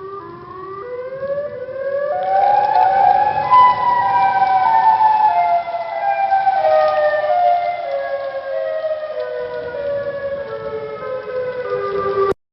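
Siren Head's siren call: a loud siren wail of several tones moving together, rising in steps for the first few seconds, then falling slowly in small steps, cut off abruptly near the end.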